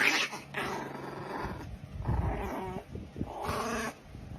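A pet animal vocalizing in a series of drawn-out calls, the first starting suddenly and loudest.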